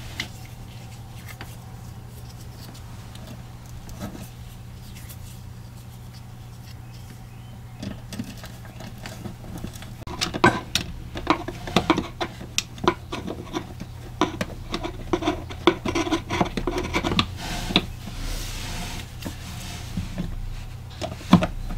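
A metal electrical box being worked into place against a wooden panel: quiet at first, then from about halfway a quick run of clicks, knocks and scraping of metal on wood, followed by a stretch of rubbing and one last knock near the end.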